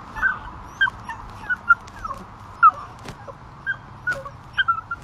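A puppy whimpering in a string of about a dozen short, high yelps, a few a second. The pup is putting on a show of pain, faking an injured leg.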